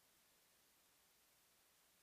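Near silence: faint steady hiss, with no distinct sound.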